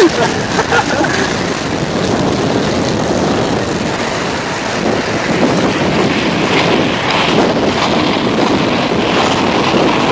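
Steady rushing of wind over the microphone at skating speed, mixed with the roll of inline skate wheels on asphalt.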